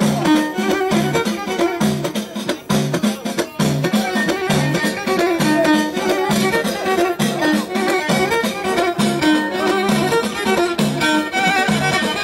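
Live Amazigh folk music: a violin playing the melody over a steady beat of hand-struck bendir frame drums.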